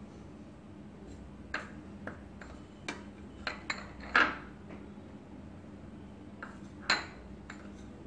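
A spoon clinking against a stainless-steel mixing bowl and small serving bowls as cornflour is spooned in: about a dozen sharp clinks, the loudest two ringing about four and seven seconds in.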